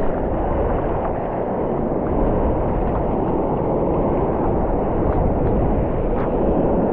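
Steady, muffled rushing of ocean water and surf, dull, with no high end, and a few faint clicks.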